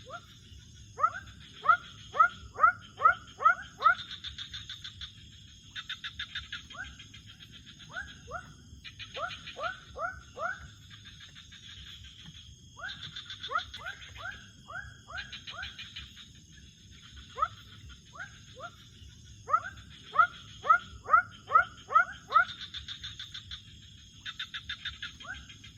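Night chorus of frogs and insects: bouts of short, rising calls, several in quick succession about two a second, over pulsing trills and a steady high-pitched insect drone.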